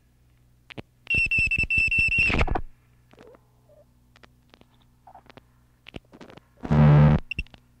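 Experimental noise music. A loud buzzing burst with a steady high tone over rapid pulses lasts about a second and a half, then scattered clicks, then a short loud noisy blast near the end, all over a low steady hum.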